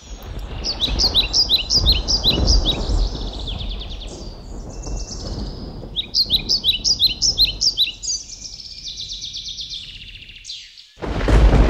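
A small songbird sings two quick phrases of repeated high chirping notes, over a low rumble of wind buffeting the microphone that grows suddenly louder near the end.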